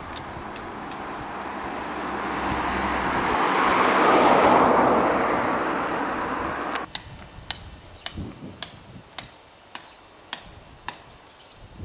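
A car passes on the road, its tyre and engine noise swelling to a peak and fading, then cutting off suddenly about seven seconds in. After that come regular footsteps of someone walking on pavement, a little under two steps a second.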